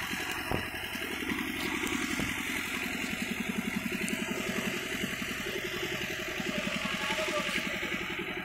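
A small engine running steadily at idle, with a fast, even pulse. A couple of faint sharp knocks come in the first few seconds.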